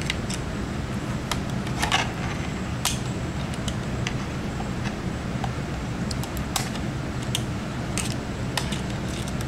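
Scattered small clicks and taps of a screwdriver against the screws and antenna connectors of a laptop's mini-PCI wireless card, at irregular intervals over a steady low hum.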